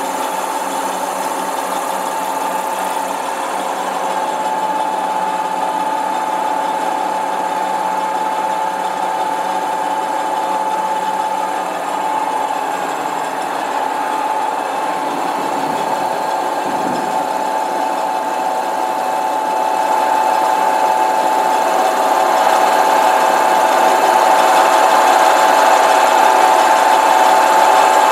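Engine lathe running steadily with a high, steady whine as a spinning wooden blank is turned with a single-point cutting tool. It grows louder in the last third.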